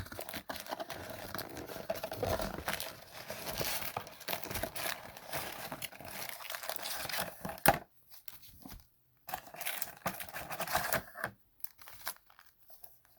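Plastic wrapping being torn open and crinkled as a trading-card mega box is unwrapped, with a sharp snap a little past halfway and sparser crinkling after it.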